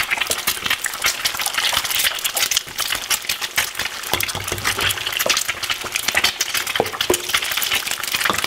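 Eggs deep-frying in a panful of hot oil, a loud, dense crackle and spatter as more eggs are dropped in; the water in the eggs makes the oil bubble up violently.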